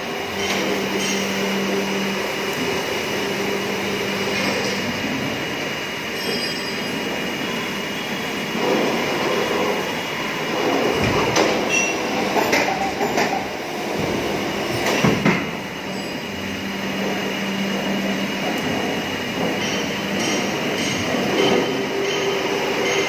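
Injection moulding machine running through a moulding cycle: a steady mechanical hum with a low held tone that comes and goes, and a few metallic knocks near the middle as the mould opens and closes.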